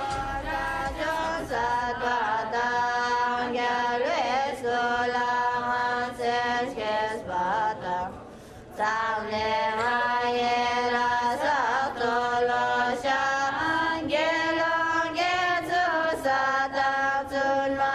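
Group of Tibetan women chanting ancient hymns in unison, in phrases of long held notes with a brief pause a little past eight seconds in.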